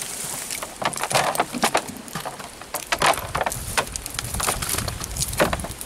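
Fish flapping against a plastic drum and a fishing net being shaken out into it: irregular quick taps, slaps and rustles.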